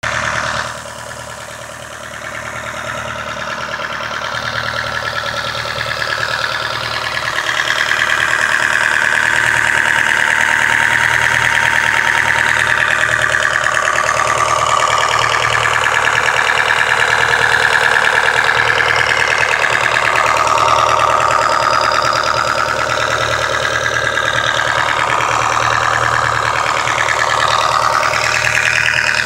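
Nissan SR20 inline-four engine running with a loud high-pitched squealing whine over its low hum; the whine wavers in pitch and grows louder over the first several seconds. The owner does not know what causes it.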